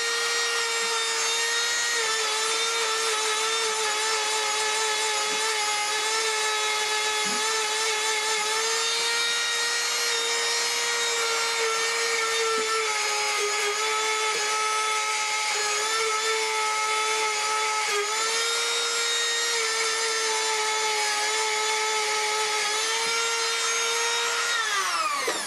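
Dremel rotary tool spinning a small wire brush at very high speed, scouring rust off a steel radio bracket: a steady high whine with many overtones that dips slightly in pitch under load and winds down near the end.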